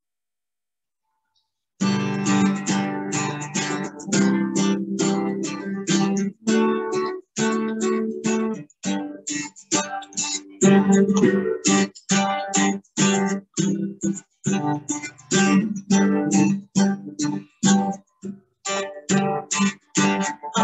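Acoustic guitar strumming chords in a steady rhythm, about two strums a second, starting after two seconds of silence. The sound keeps cutting out briefly between strums.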